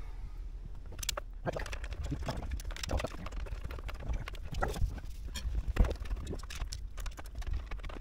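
Irregular light clicks, taps and rustling as a wiring harness and its plastic connector are pushed and worked through a tight opening behind a truck's dashboard, with one sharper knock about six seconds in.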